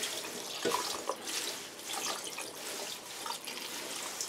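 Kitchen tap running steadily onto nettle leaves in a stainless steel colander in the sink, with a couple of light knocks about a second in.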